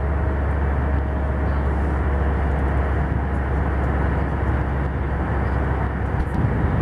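Steady cabin noise of an Airbus A320 in cruise: a deep, even rumble of engines and airflow with a rushing hiss above it.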